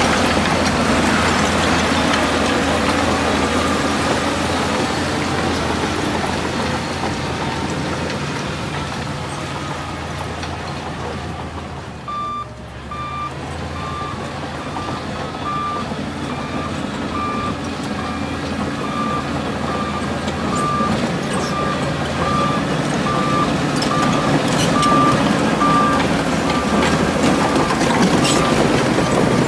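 Diesel engine of heavy earthmoving machinery running steadily. From about twelve seconds in, a reversing alarm beeps evenly, a little more than once a second, as a machine backs up.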